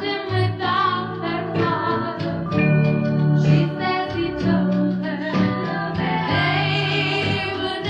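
1960s pop song with a female lead vocal over a group backing and a steady bass line.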